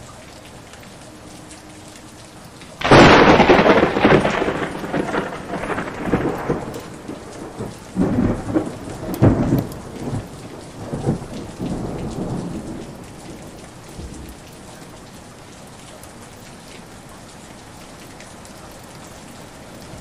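Steady heavy rain. About three seconds in, a sudden loud thunderclap breaks and rumbles on in several rolling peaks for about ten seconds before dying away under the rain.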